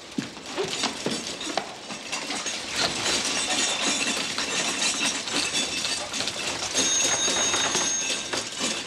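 Crammed-full household dishwasher running, its load crashing and rattling in a continuous racket loud enough to be taken for a tram. A thin high tone joins in for about a second near the end.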